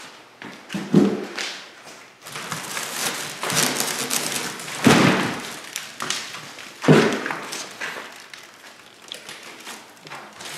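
Cardboard box and plastic-wrapped packaging being handled and dragged as a snowblower is pulled out of its shipping box, with rustling and scraping broken by three dull thumps: about a second in, around five seconds and around seven seconds.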